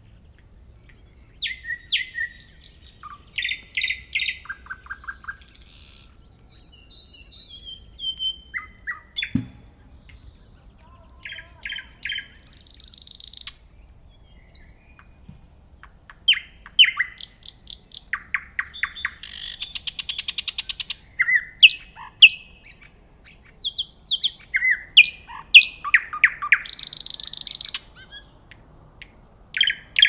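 Nightingale singing: phrase after phrase of fast repeated sharp notes, a few clear slurred whistles and harsh buzzing rattles, with short pauses between phrases. It grows louder in the second half.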